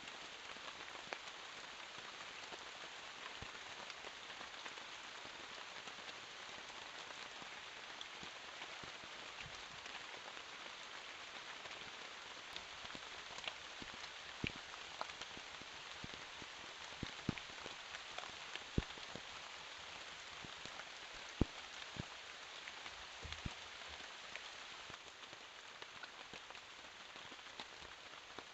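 Steady rain falling, with scattered louder drops striking close by, more of them past the middle.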